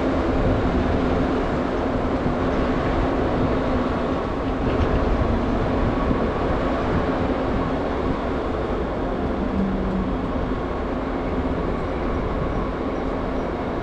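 Train running through a railway station: a steady rumble with a few steady tones over it, easing slightly in loudness towards the end.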